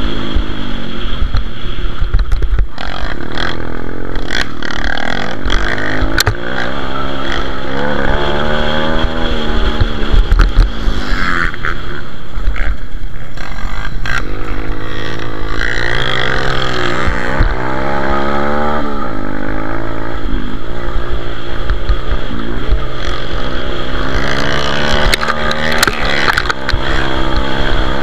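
Pit bike's single-cylinder engine racing hard, revving up and falling back again and again as the rider accelerates, shifts and rolls off, with occasional knocks from the bike.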